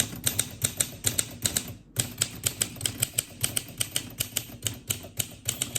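Olympia SM4 manual typewriter being typed on at a steady pace, its typebars striking the platen in a run of sharp clacks about five a second, with a brief pause about two seconds in.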